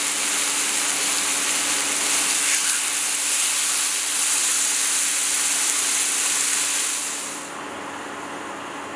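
Marinated chicken breasts sizzling on a hot grill pan: a steady hiss that drops to a softer hiss about seven and a half seconds in, with a faint steady hum underneath.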